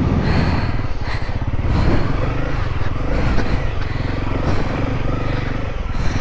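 Dual-sport motorcycle engine running with a steady exhaust beat.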